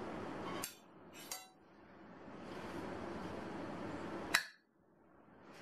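Three sharp clinks of glass and dishes knocking together while salad is served from a glass bowl: one about half a second in, a lighter one just after, and a louder one about four seconds in. A steady low hum runs underneath and dips after the first and last clinks.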